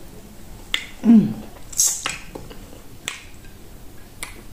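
Close-up eating sounds: sharp wet mouth clicks and smacks while chewing okra soup and meat by hand, spaced a second or so apart. About a second in comes a brief falling pitched sound, the loudest moment.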